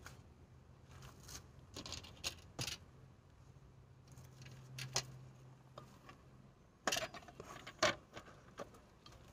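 Hands working with a flower pot and potting soil: scattered rustles, scrapes and light knocks, with two sharper knocks about seven and eight seconds in.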